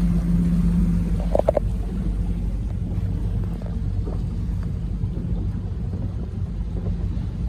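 Motorboat engine running steadily under way, with wind and water rushing past. A couple of short knocks about a second and a half in.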